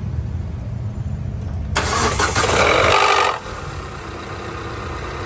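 Proton Suprima engine just after a cold start, with a loud harsh noise about two seconds in that lasts about a second and a half before it settles into a steady idle. The mechanic traces the cold-start noise to oil draining back past a faulty one-way valve, leaving low oil pressure at start-up.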